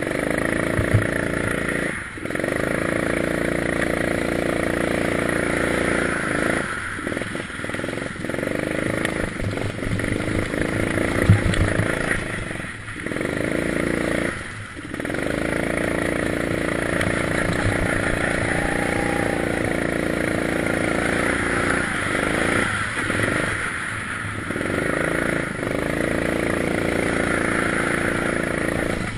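Go-kart engine running hard, its pitch climbing as it accelerates and falling off sharply several times as the throttle is lifted, then climbing again.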